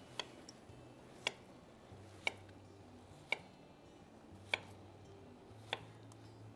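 Knife slicing a firm ripe plantain on a wooden cutting board: a sharp knock each time the blade goes through and meets the board, six strokes about a second apart.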